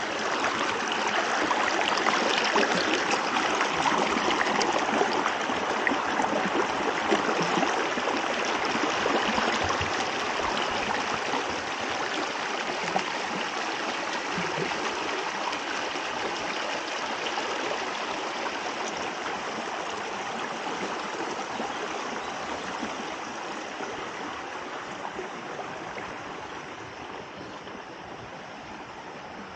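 Shallow creek water running and babbling over stones, a steady rush that is loudest in the first third and slowly fades.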